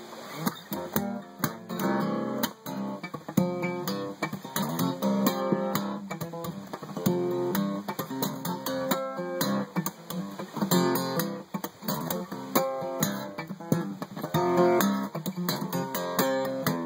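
Acoustic guitar playing an instrumental passage of a song, with quick picked and strummed notes.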